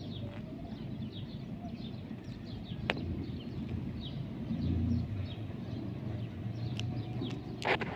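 Small birds chirping: many short, quick falling chirps repeating throughout, over a steady low rumble. A sharp click about three seconds in and a brief louder rustle near the end.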